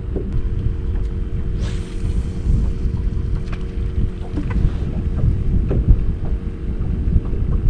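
Wind buffeting the microphone on a small boat on open water, a heavy low rumble, with a steady hum underneath and scattered light ticks. A brief hiss comes about two seconds in.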